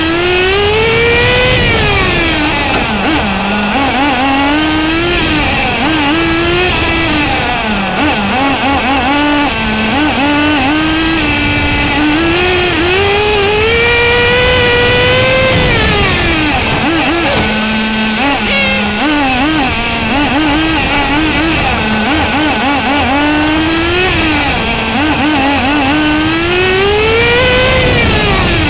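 Onboard sound of a Bycmo RC car's small nitro engine at speed, revving up in long rising climbs and falling away again, about three times over, with wind and tyre noise underneath.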